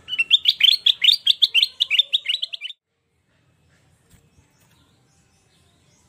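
Ruby-throated bulbul (kutilang emas) singing a fast run of high, down-slurred chattering notes, about six a second, for nearly three seconds, cutting off abruptly.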